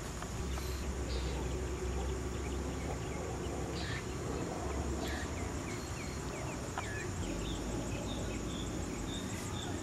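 Outdoor ambience carried by a steady, high-pitched insect chorus, with a few short bird chirps in the second half and a low rumble underneath.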